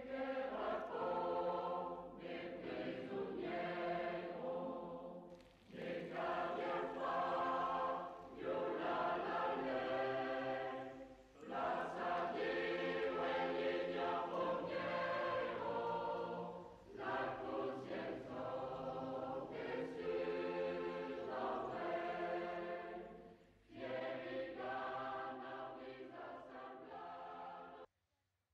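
Choral music: a choir singing sustained phrases with brief pauses between them, cutting off abruptly near the end.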